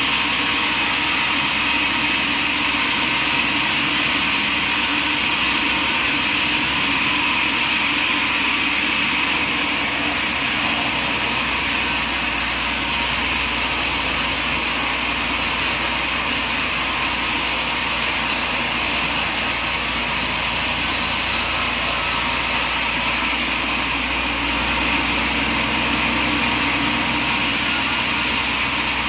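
Sawmill running steadily, its engine and blade making a constant even noise.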